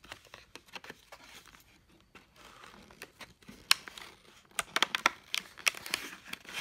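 Plastic blister packaging crackling and crinkling as an extremely dull folding knife blade saws and pries into it. A run of sharp clicks and crackles gets louder about halfway through.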